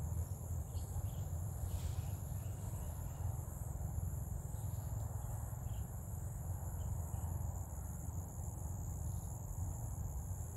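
Insects trilling steadily in a high, unbroken chorus over a low, steady rumble.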